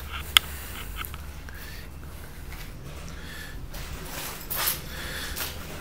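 Footsteps and scuffs on a gritty concrete floor, with one sharp click about half a second in and a steady low rumble underneath.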